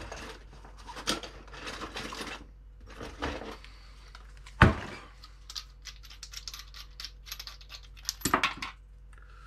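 Rummaging in a bag of small parts: rustling and light rattling, a sharp knock about four and a half seconds in, then a quick run of light clicks and taps.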